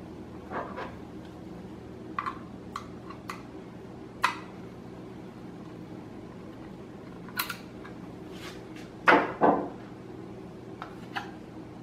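Scattered light clicks and clinks of a drive sled, screws and a screwdriver being handled, with a louder double knock about nine seconds in, over a faint steady hum.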